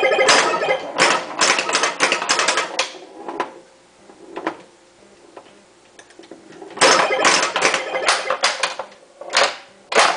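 Bally Voltan Escapes Cosmic Doom pinball machine in play: quick runs of clacks from the ball and the solenoid-driven bumpers and flippers, mixed with the game's electronic sound-effect tones. It is busy for the first three seconds, goes quiet apart from a couple of single clicks, and starts up again about seven seconds in.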